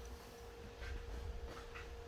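Faint clinks and handling noises as an engine is worked into place on a hoist, with soft knocks about a second in and near the end, over a low steady hum.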